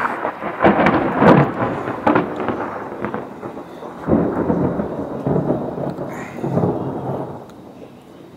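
Thunder rumbling in two long rolls. The first builds just under a second in; the second breaks about four seconds in, and both die away near the end.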